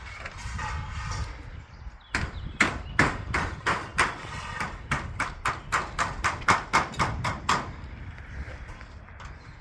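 A hammer striking repeatedly, about twenty sharp blows that speed up from about two to about five a second, then stop.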